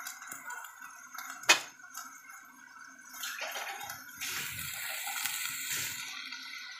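Beef and onions cooking in a little broth in a stainless steel pot, a watery sizzle and bubbling, with one sharp knock about a second and a half in and a louder hiss from about four to six seconds in.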